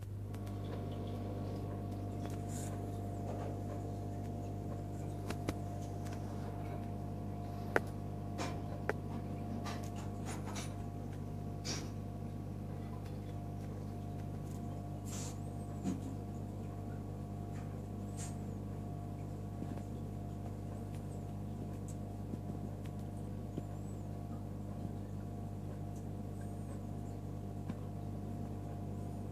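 Steady electric hum of a marine aquarium's pumps, a low drone near 100 Hz with fainter higher tones above it, with scattered light clicks and ticks.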